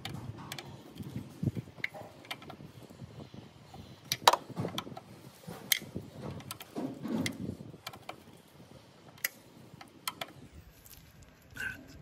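Irregular metallic clinks and knocks of a wrench working on the bolts of a scooter's rear brake caliper as they are tightened, with a few dull low thuds.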